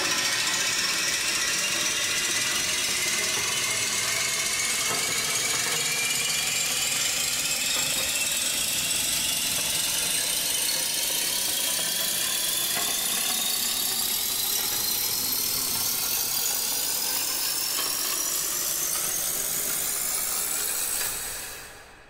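Long riser sound effect: a dense wash of many stacked tones over a noisy haze, all gliding slowly upward in pitch at a steady level, then fading out quickly near the end.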